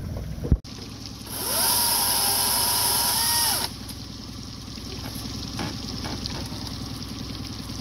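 Chainsaw revved briefly: its whine rises as it spins up about a second in, holds steady for a couple of seconds, then falls away and stops. A sharp knock comes just before it, and a low steady rumble runs underneath.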